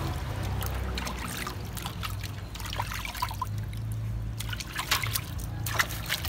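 Water splashing and trickling in a large stainless-steel basin as hands wash a baby monkey, scooping and rubbing water over it, in many short sharp splashes and drips over a steady low hum.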